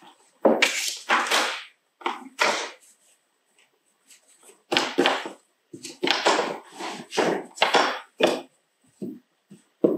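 Dry jute fibres rustling and crackling in repeated bursts of about half a second to a second as they are handled and pressed onto a glued driftwood broomstick, with a few short knocks near the end.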